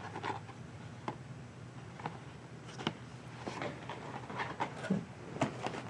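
Hot Wheels blister-pack cards being handled and pulled from a cardboard case: scattered light clicks and rustles of card and plastic packaging.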